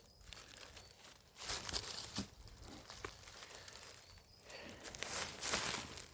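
Rustling and crunching steps through the forest floor litter, in several short bursts.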